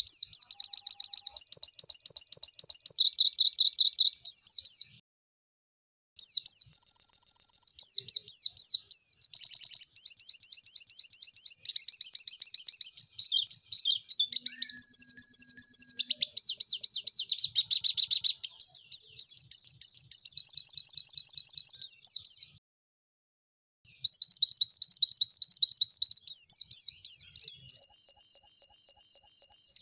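White-eye (pleci) singing in long, fast bursts of rapid, high-pitched repeated chirps and trills, broken by two short silent gaps, about five seconds in and again near the twenty-third second.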